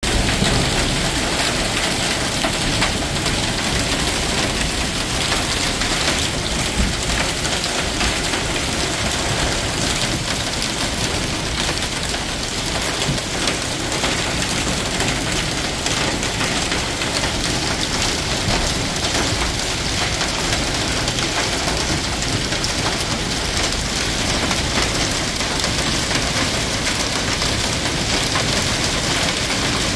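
Small hail mixed with heavy rain pelting a parked car's body and the pavement: a dense, steady patter of many tiny impacts.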